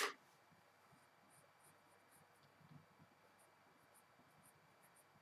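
Faint graphite pencil scratching on paper in a string of short, light strokes, after a single sharp click right at the start.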